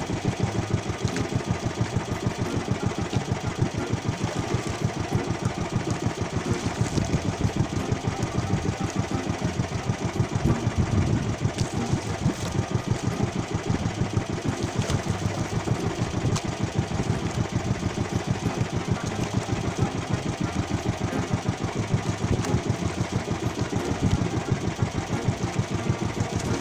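Small fishing-boat engine idling, a steady fast chugging beat that holds even throughout.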